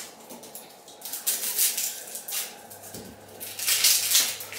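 Several short bursts of scraping and rustling as vegetables are handled and cut with a knife at the kitchen sink. A faint low hum comes in about halfway.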